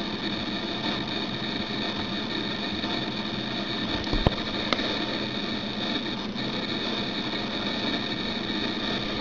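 eMac G4 running steadily with a whir and hum from its fan and drives while it boots to the grey Apple-logo screen, with two light clicks a little after four seconds in.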